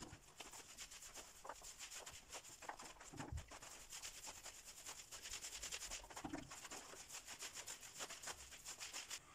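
Paint roller on an extension pole rolling wet water-based paint over a wall: a faint, rapid rasping rub, with two dull knocks about three and six seconds in.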